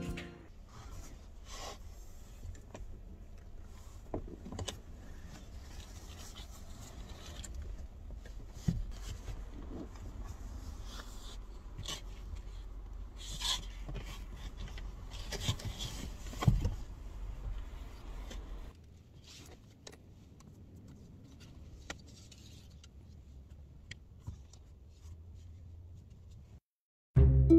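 Handling noises inside a car: rubbing and scraping with scattered clicks and knocks as the rear seats of a Honda Fit are folded flat and a folding table is set up. A low steady rumble sits underneath and drops away about two-thirds of the way through.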